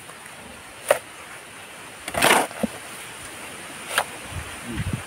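Steel shovel scooping wet cement mix off a concrete floor: one gritty scrape about two seconds in, with a short sharp knock about a second in and another near the end.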